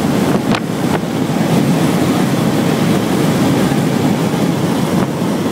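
Loud steady rush of wind and road noise inside a moving van's cabin, with wind buffeting the microphone.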